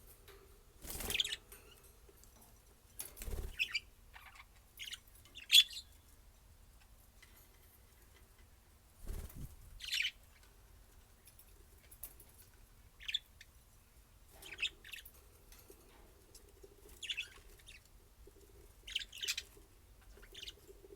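Small pet parrots chirping in short, scattered calls every second or two, with a few low thumps among them.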